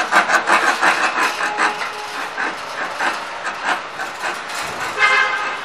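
Rapid metallic clattering from a chalk-making machine's steel frame and foot-pedal linkage, about six clicks a second, fading after two seconds, with a brief squeak about five seconds in.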